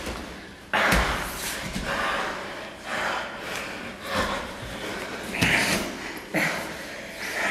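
Heavy, strained breathing and gasps of two grapplers straining in a submission hold, coming in repeated surges. A thump of bodies shifting on the mat about a second in.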